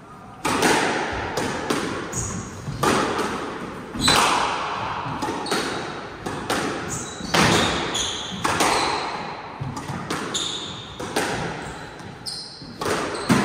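Squash rally: the ball cracking off rackets and the walls of an enclosed court, a sharp hit about every second with a short echo after each. Between the hits come short high squeaks of shoes on the wooden floor.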